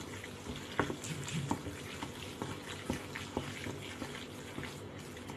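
Wooden chopsticks stirring a wet paste of minced fish and tofu in a stainless steel bowl: a soft wet churning with irregular light taps of the chopsticks against the bowl.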